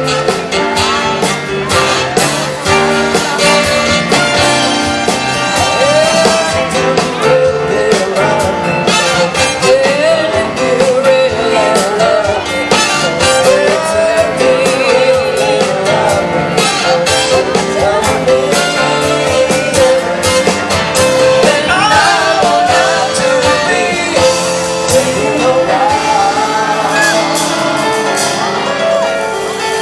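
Live band playing an upbeat song with a lead singer, amplified through a PA system, with steady drum hits throughout.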